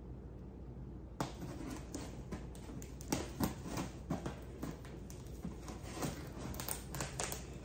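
Scissors slicing along the packing tape on a cardboard box, an irregular run of clicks and scratchy scraping of blade on tape and cardboard that starts about a second in.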